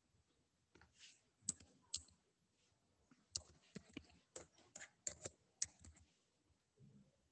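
Faint computer keyboard typing: scattered, irregular keystrokes in short runs.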